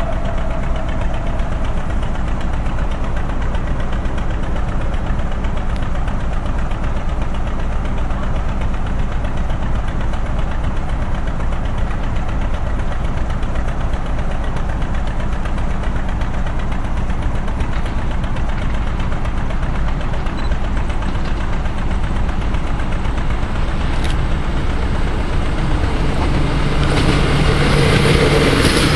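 A diesel engine idling with a steady low rumble. In the last few seconds an SA134 diesel railbus comes in and passes close, its engine and running gear getting louder.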